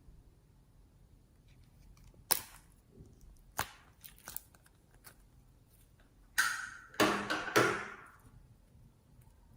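Slime being worked by hand: a few sharp pops and clicks, then a louder crackling burst of popping and squishing near the end.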